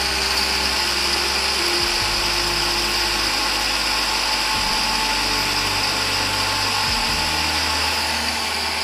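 Electric spice grinder running steadily, its motor whirring as it grinds whole dry spices into powder.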